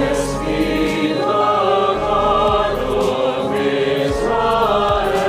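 A church choir sings a slow hymn in held notes, with sustained organ tones beneath.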